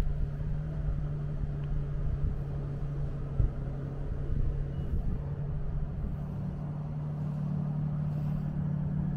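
Steady low hum of a motor vehicle over a low rumble of traffic.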